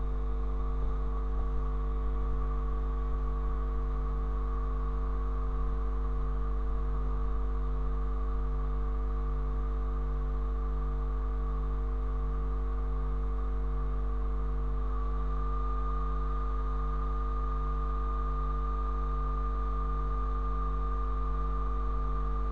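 Steady electrical mains hum with several fixed tones above it, and a thin high whine that steps up slightly in pitch about fifteen seconds in.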